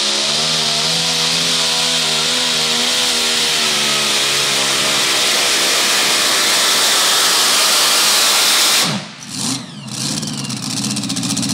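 Supercharged engine of a super modified two-wheel-drive pulling truck running flat out under load, its pitch wavering up and down, then dropping off abruptly about nine seconds in and settling to a lower, steady run.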